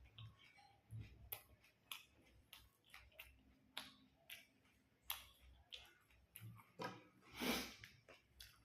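Faint eating sounds: irregular small clicks and crunches, with one louder noisy rush about seven and a half seconds in.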